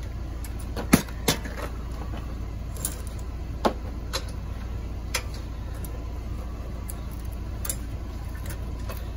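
Scattered sharp clicks and knocks from a bicycle being handled with its rear wheel off: the steel frame, rear fender and slack chain clanking. There are about half a dozen, the loudest about a second in, over a steady low rumble.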